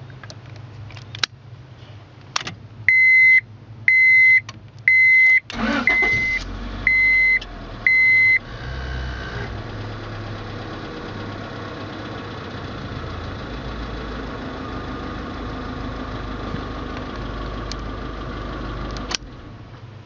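Honda Odyssey ignition switch, taken out of its lock cylinder and turned with a screwdriver, clicks through its positions while the dashboard warning chime beeps about once a second, six times. About six seconds in, the starter cranks briefly and the engine catches and idles steadily, then shuts off suddenly near the end as the switch is turned back.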